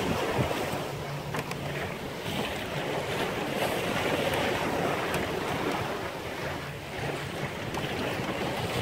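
Choppy seas washing and splashing along the hull of a 19-foot sailboat under sail, with wind buffeting the microphone in uneven gusts.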